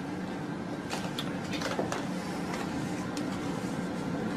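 Steady low background hum with a few faint scattered clicks.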